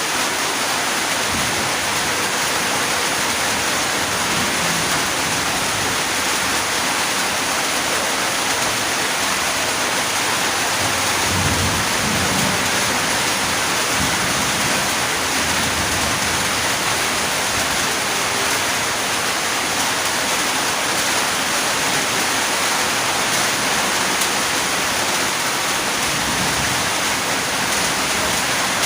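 Steady rain falling, an even, dense hiss with no letup.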